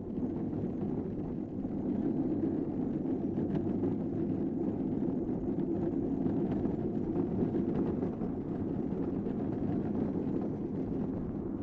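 Unpowered downhill gravity kart rolling fast on a concrete track: a steady rumble of the hard wheels on the pavement, with wind buffeting the microphone.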